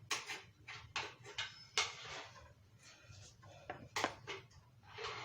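A run of light, scattered knocks and clatters from dishes and things being handled in a kitchen.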